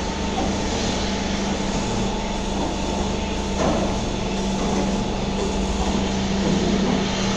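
Milking machine running in a milking parlour with the clusters on the cows: a steady mechanical hum over a constant wash of noise, with a brief knock about three and a half seconds in.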